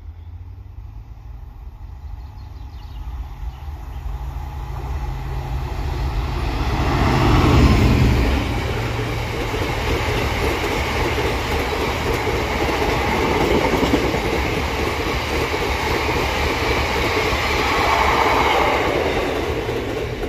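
British Rail Class 66 diesel-electric freight locomotive approaching and running past, loudest about eight seconds in, followed by a long rake of box wagons rolling by with a steady clatter of wheels over the rail joints. The sound fades away just at the end.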